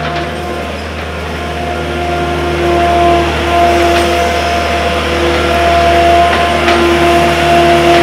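John Deere 317 skid steer's diesel engine running as the machine drives in, growing louder over the first few seconds as it comes close. A higher whine comes and goes over the engine note.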